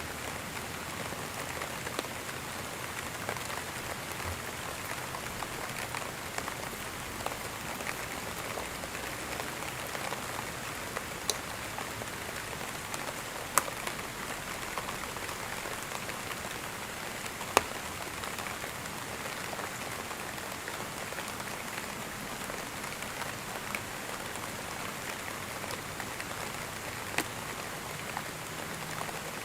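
Steady rain falling, an even hiss with scattered sharper drops hitting close by, a few standing out clearly.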